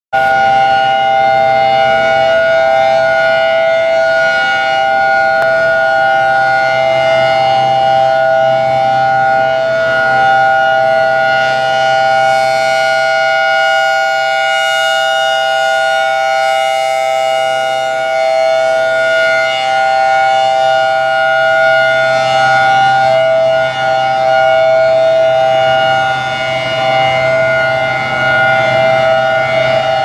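Outdoor tsunami warning siren sounding a long, steady tone made of two close pitches, with no rise or fall, during a test of the warning system.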